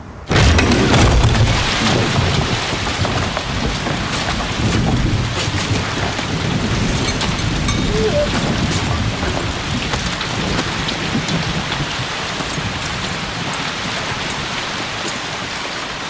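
Heavy rain pouring down, cutting in suddenly just after the start, with low rumbles of thunder in the first few seconds and again around the middle.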